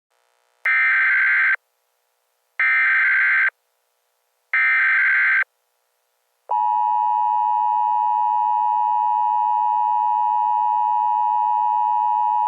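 Emergency Alert System header: three short bursts of SAME data tones, each just under a second long and about two seconds apart, followed about halfway through by the steady two-tone EAS attention signal, held without a break.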